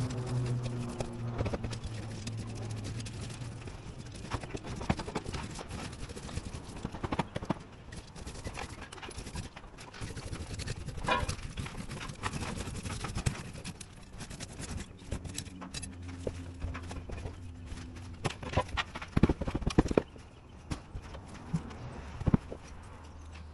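Irregular knocks, taps and scrapes of roofing work on a low-slope roof deck: a roofer moving about on the deck and handling tools and SBS membrane. A few louder knocks come near the end.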